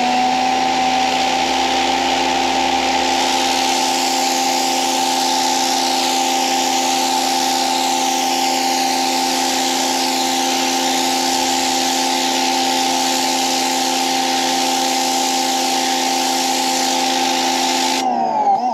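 EGO Power+ HPW3200 cordless pressure washer running under load, its motor and pump giving a steady whine under the hiss of water jetting from the turbo nozzle onto concrete. Near the end the spray cuts off and the motor's whine falls away as it spins down.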